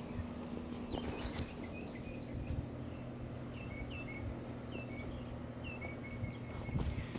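Steady, high-pitched chorus of crickets or other insects, with a series of short, falling chirps that start about a second in and stop near the end.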